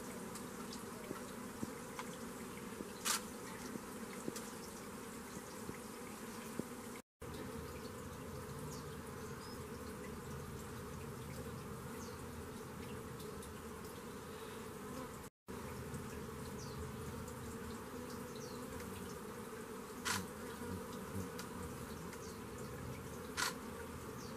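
A steady buzzing drone like flying insects, with three sharp clicks and two brief moments where the sound cuts out.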